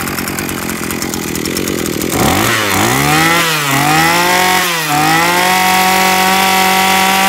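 Maruyama 26cc brush cutter engine on a test run. It idles for about two seconds, is revved up and back down twice, then is held at high revs.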